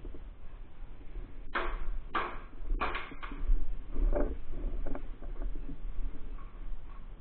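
A quick run of sharp snaps or knocks, five of them between about a second and a half and three and a half seconds in, the last three close together, followed by a couple of fainter ones, over a steady low rumble.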